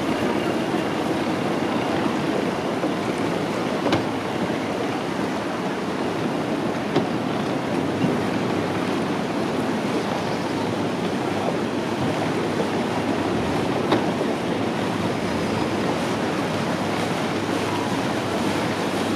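Motorboats running along a canal: a steady wash of engine and churned-water noise, with a few faint clicks.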